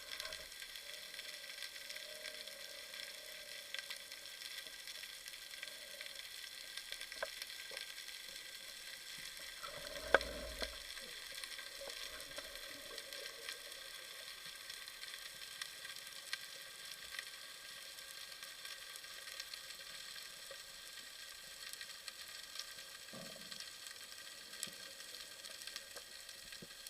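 Underwater crackling ambience: a steady fizz of countless tiny clicks. One sharp knock about ten seconds in, with a softer low thump later on.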